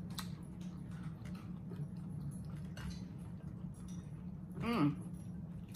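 Quiet eating sounds: spoons clicking softly against glass soup bowls over a steady low hum, with a short voiced "mm" about three-quarters of the way through.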